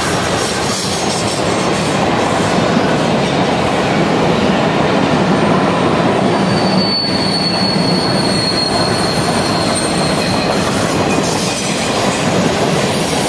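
Freight train cars rolling past, a loud steady noise of wheels on rail, with a thin high-pitched wheel squeal that sets in about halfway through and fades some four seconds later.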